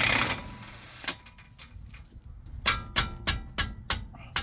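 Metal hand tools working on a car's axle nut: a short burst of noise, then a run of sharp metallic clicks with a slight ring, about three a second, in the second half.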